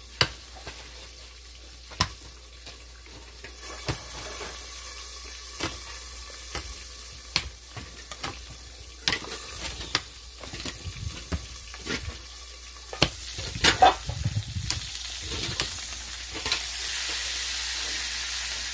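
Food frying in a pan, with scattered sharp clicks and knocks of a utensil stirring against it. About three-quarters of the way through, the sizzle turns louder and steady.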